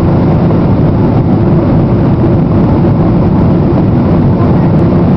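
Steady, loud rumble of a jet airliner's engines and rushing air, heard inside the cabin from a seat over the wing while the plane moves fast along the ground.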